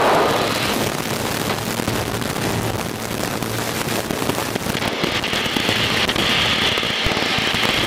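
Cockpit noise of an Extra 300 aerobatic plane in flight: its engine and the rushing air make a steady, dense, crackly noise. The noise changes character about five seconds in.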